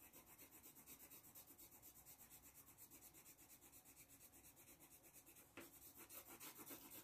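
Faint scratching of a coloured pencil shading on paper, in quick back-and-forth strokes about four or five a second, a little louder near the end.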